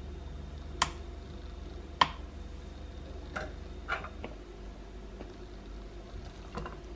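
Sharp clicks and light knocks of kitchen tongs and a plate on a digital kitchen scale as salad is served, the two loudest about one and two seconds in and lighter ones later, over a low steady hum.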